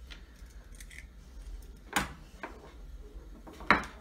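Sharp blade cutting through a plastic macro airline on a small wooden block, with the blade and hands knocking on the wood: a few short, sharp clicks and knocks, the loudest near the end.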